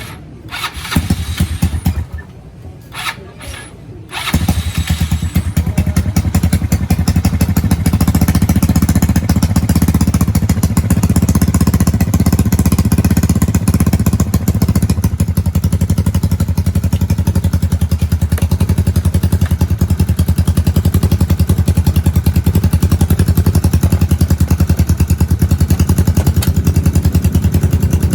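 Yamaha Mio scooter's single-cylinder four-stroke engine, fitted with a GP-type aftermarket racing pipe, being started: a few short irregular bursts, then it catches about four seconds in and runs at a steady idle with a rapid, even exhaust pulse.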